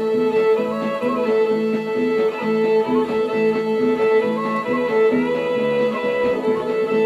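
Background music played on strings, fiddle over guitar, in a steady repeating rhythm.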